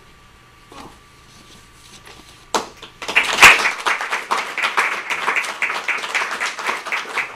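Small audience applauding, with many hands clapping together. It starts about three seconds in, just after a single sharp knock, and keeps going.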